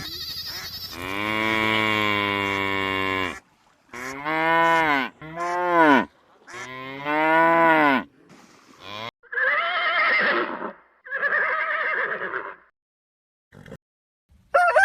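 Cattle mooing: a long call of about two seconds, then several shorter calls with brief pauses between them.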